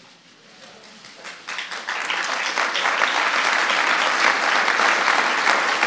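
Audience applauding: clapping starts faintly about a second in and swells within a second to steady applause.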